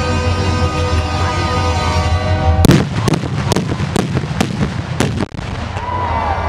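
Music with a steady low drone for the first couple of seconds, then fireworks go off at ground level: a sudden string of sharp bangs, roughly two a second.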